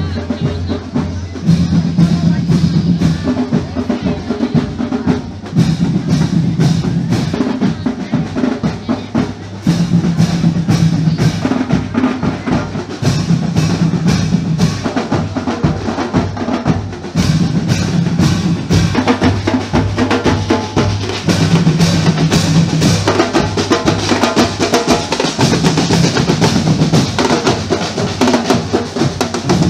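School marching band (fanfarra) playing on parade: snare and bass drums beating dense, rapid strokes, with a low held brass phrase returning about every four seconds.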